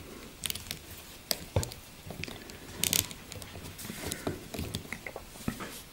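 Hands handling and posing a plastic NECA RoboCop action figure with its jetpack: scattered light clicks, taps and rustles of plastic parts and fingers.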